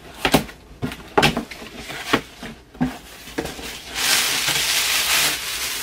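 A cardboard box being unpacked by hand: a few light knocks and scrapes of the box and its flaps, then about four seconds in a louder, steady rustle of the packaging being pulled open.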